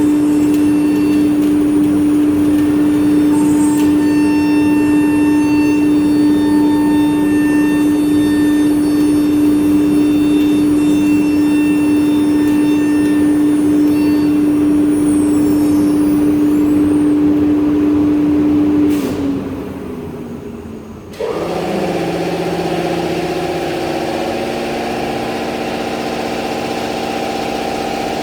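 CNC machining center's spindle motor running with a steady high hum, then winding down about two-thirds of the way through. A couple of seconds later another machine motor starts abruptly and runs steadily with several mixed tones.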